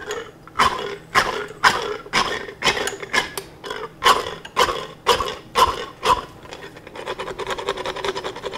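Hand-held equine dental file (float) rasping a horse's back molars to smooth sharp enamel edges, in strong strokes about two a second. From about seven seconds in the strokes become shorter and faster.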